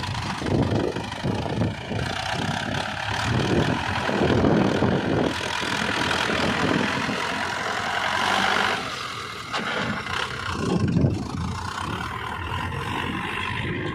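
Diesel engine of heavy earthmoving machinery running, its level rising and falling.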